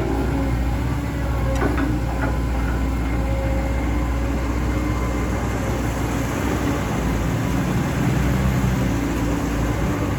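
Diesel engine of a CAT 320D2 GC excavator running steadily under work, with a couple of light knocks about two seconds in.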